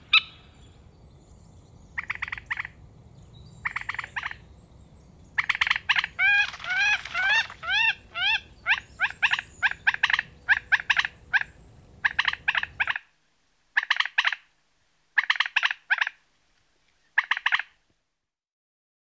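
A bird calling in bursts of rapid, sharp notes, a burst every second or two, with a run of quickly repeated rising-and-falling notes in the middle. A low background rumble cuts off suddenly about two-thirds of the way through while the calls go on.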